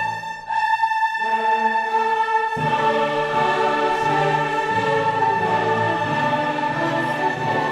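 Background music: orchestral with choir voices, held notes. The low notes drop out just after the start and come back fuller about two and a half seconds in.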